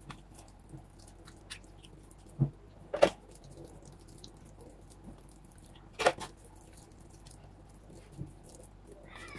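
Hands squishing and rubbing wet masala paste into pieces of red snapper in a stainless steel bowl, with faint ticks and three louder knocks: one about two and a half seconds in, the sharpest at three seconds, and another at six seconds.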